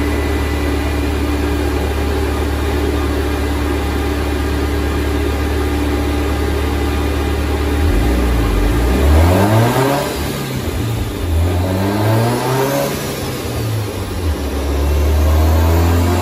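Turbocharged Subaru WRX STI flat-four with a Garrett 3584 turbo, running on a chassis dyno. It holds a steady speed at first. From about halfway in, its pitch climbs and swings up and down for several seconds, then it settles back to a steady run near the end.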